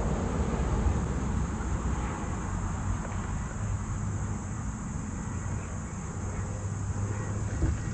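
Wind buffeting the microphone, a steady low rumble, with a faint even hum underneath in the second half.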